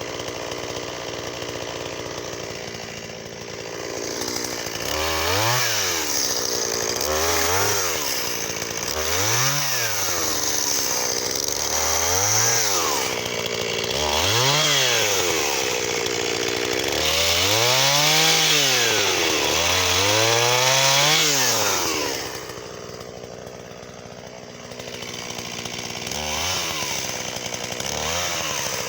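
Shindaiwa 488 two-stroke chainsaw idling, then throttled up and eased off again and again, every two to three seconds, while cutting wattle. It drops back to idle for a couple of seconds about three-quarters of the way through, then revs again near the end.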